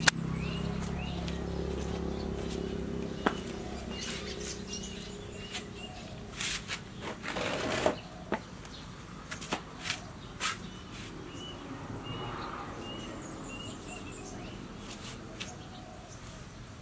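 A small bird chirping over and over in the background, short repeated chirps about once or twice a second. Scattered knocks and a brief rustle around the middle come from rubber boots and sandals being handled, and a low hum fades out in the first few seconds.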